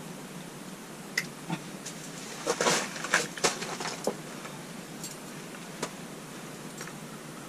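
Scuffs, slaps and knocks of a freshly caught lake whitefish being grabbed and lifted off the snowy ice, busiest in the middle, over a faint steady hiss.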